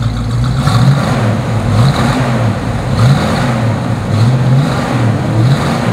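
1970 Ford Mustang Mach 1's 351 Cleveland V8 running through its dual exhaust, revved again and again, its pitch rising and falling about once a second.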